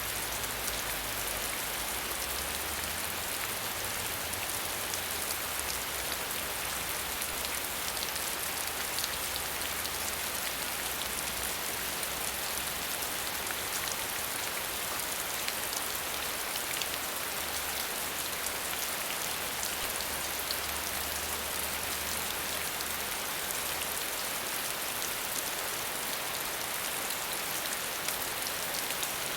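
Continuous water noise: an even, steady hiss of falling water with faint scattered patter and an intermittent low rumble underneath.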